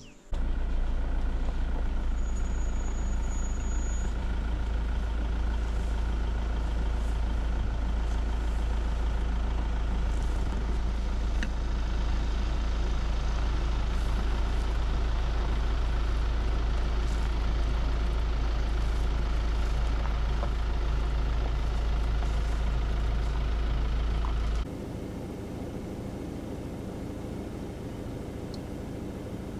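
A vehicle driving along a gravel road, heard from inside the cabin: a steady deep rumble of engine and road noise. About 25 seconds in it cuts suddenly to a much quieter steady background.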